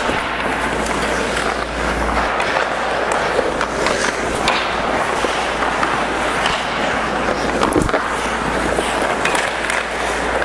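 Hockey skate blades scraping and carving on the ice, with a few sharp clacks of sticks and pucks.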